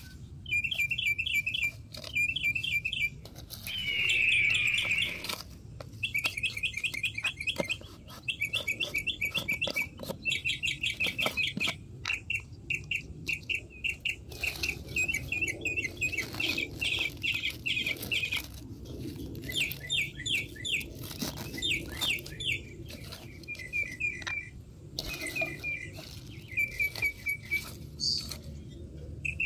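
Small birds chirping in quick, repeated trills of short high notes, in bursts of about half a second to a second.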